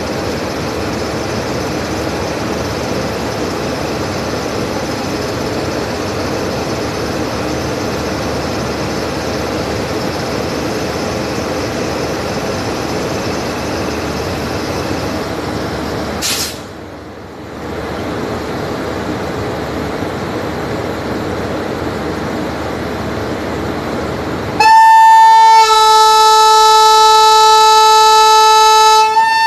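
WAP5 electric locomotive standing with a steady running noise, broken by a click and a brief drop about sixteen seconds in. Near the end its horn sounds loud and long, about five seconds, with a second, lower tone joining a second after it starts.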